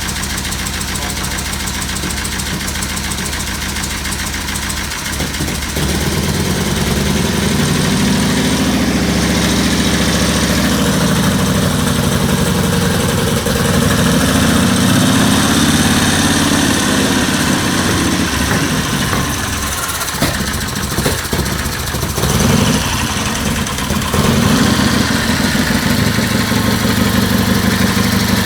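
Water-cooled Matchless MX V-twin engine from a mid-1930s Morgan three-wheeler, freshly rebuilt, on a test run. It runs steadily at first, then from about six seconds in it is revved up and down several times before settling back to a steady run near the end.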